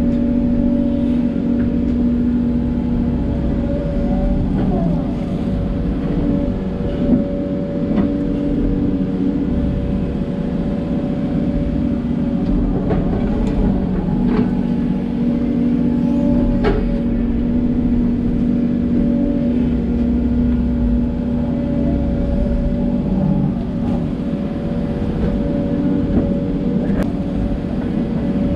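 Hidromek 140LC hydraulic excavator's diesel engine running steadily while it digs and moves soil, with a few sharp knocks.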